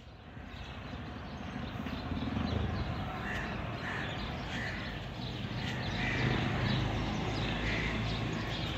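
Crows cawing again and again, short calls under a second apart, over a steady low rumble of street traffic.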